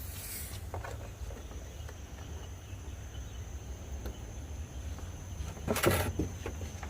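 Refrigerant gas flowing from the just-opened charging valve into the evacuated car air-conditioning system: a faint, steady, thin high-pitched hiss over a low hum, with one brief loud clatter about six seconds in.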